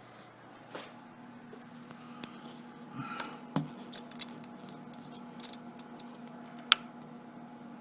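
Quiet room noise: scattered small clicks and rustles over a faint steady hum, with one sharper tick near the end.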